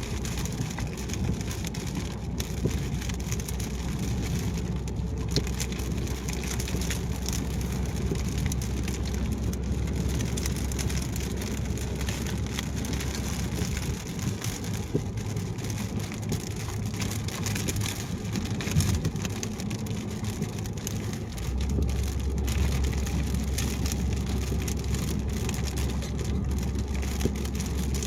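A car driving on a highway in the rain: steady tyre and road noise, with many small raindrop ticks hitting the car. The low rumble drops back about halfway through and rises again after about 21 seconds.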